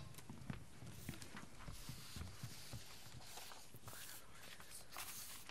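Faint footsteps and scattered small knocks and rustles, as people walk up to a lectern on a stage.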